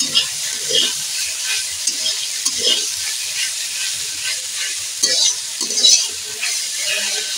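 Chopped water spinach (kalmi shak) sizzling in hot oil in a metal kadai, with a steady hiss, while a metal spatula stirs and scrapes it round the pan in irregular repeated strokes.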